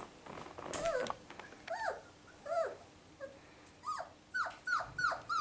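Five-week-old Goldendoodle puppy crying: short high whimpers that each fall in pitch. They are spaced out at first and come faster, about two or three a second, near the end.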